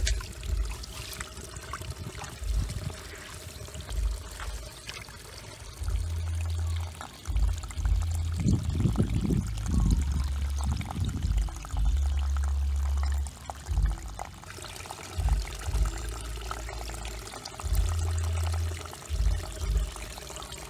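Water pouring and trickling, with repeated low rumbles coming and going throughout.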